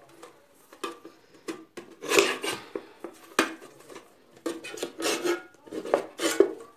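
Kitchen knife scraping and prying around the metal lid of a tin-can money box, cutting it open. The strokes come in irregular scrapes, about ten in all, with the can ringing under them.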